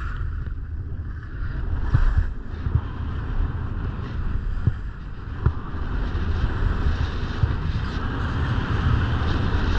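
Wind buffeting the microphone of a camera moving down a ski slope, with a steady rushing hiss and a few faint clicks.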